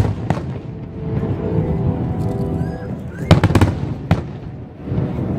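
Aerial fireworks shells bursting: two sharp bangs at the start, then a rapid cluster of loud bangs about three and a half seconds in and a single bang shortly after.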